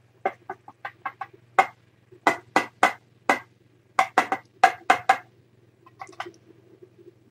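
Very young kittens mewing and squeaking in a quick run of short, shrill cries, loudest in the middle, over a steady low electrical hum.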